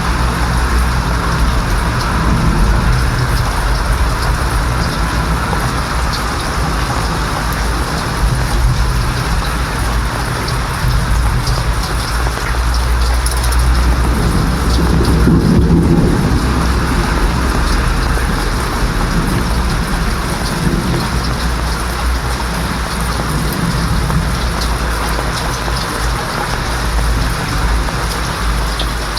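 Steady rainfall with rolling thunder rumbling underneath, the thunder swelling louder about halfway through.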